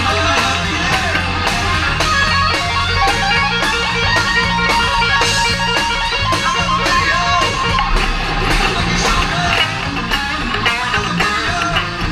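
Live rock band playing: electric guitar lines over a bass line and a steady drum beat.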